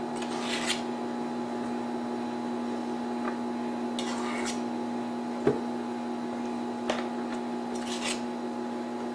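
Microwave oven running with a steady hum while warming a cup of milk. Over it, a spoon scrapes through flour and into a stainless steel mixer bowl three times, with a small knock in between.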